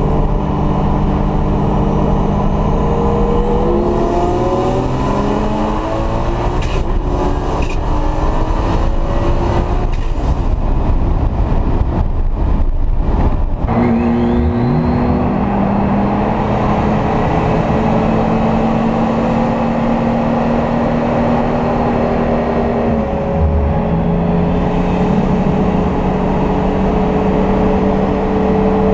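Turbocharged VW VR6 engine heard from inside the cabin: running steadily, then about four seconds in pulling hard, its pitch climbing through gear changes with a high turbo whistle rising on each pull. Later it settles into a steady run.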